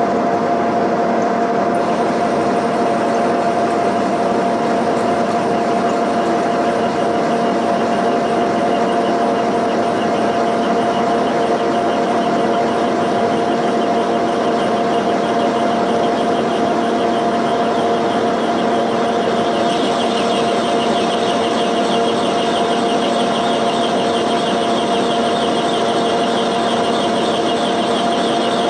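A milling cutter spinning and cutting into a cast iron cylinder head around a valve guide: a steady machining sound with a constant hum, and a higher-pitched ring that gets stronger about two-thirds of the way in.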